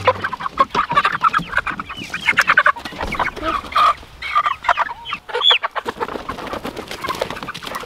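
Chickens clucking and squawking as they are handled and lifted out of a plastic poultry crate, with a stream of short calls and one longer rising-and-falling squawk about five and a half seconds in. Short clicks and knocks from the crate are mixed in.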